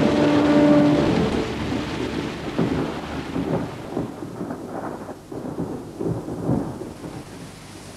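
Heavy rain with rolling thunder, fading toward the end. A held music chord ends about a second in.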